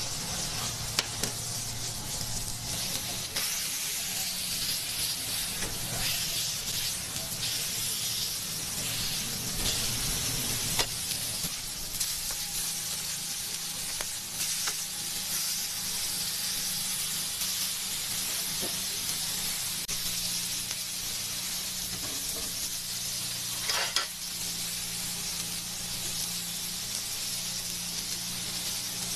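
Burger patties sizzling steadily on a hot flat-top griddle, with a few sharp clicks of metal utensils against the griddle over a low steady hum.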